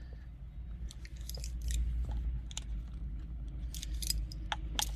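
Scattered small plastic clicks and scrapes as the air-vent louver adjustment knob on a 2014 Kia Ceed dashboard is worked by hand. The knob's rear plastic retaining clip has crumbled away, so the knob sits loose on the louver. A low steady rumble runs underneath.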